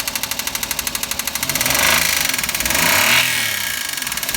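Car engine with an abnormal noise that the owner fears means a blown engine. It idles with a rapid, even pulsing, then is revved in short throttle blips, twice, with a third starting at the end.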